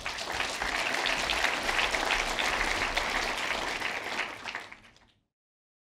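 Audience applauding with many hands clapping, fading away about four seconds in and then cut off to silence.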